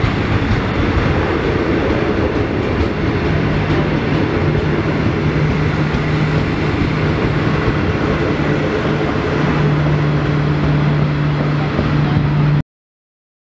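Heritage passenger carriages running past at speed: a steady rumble of wheels on rail, with a low steady hum joining about three seconds in. The sound cuts off abruptly near the end.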